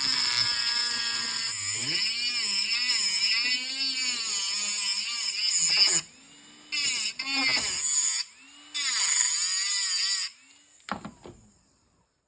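Small electric power tool running in bursts, its pitch wavering as it works under load. It runs for about six seconds, then stops and starts several times in shorter runs. A few light clicks come near the end.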